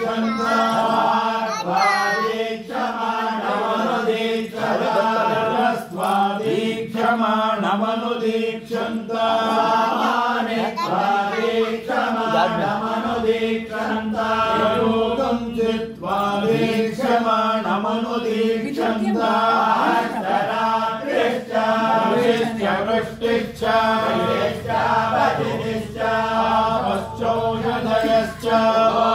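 Vedic chanting (Veda ghosha) in Sanskrit: voices reciting in a steady rhythmic cadence over a constant held low tone.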